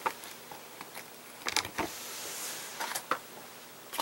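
Light clicks and taps of a coloured pencil and a marker being handled and set down on a desktop, a few separate ones, with a brief soft hiss a little after two seconds.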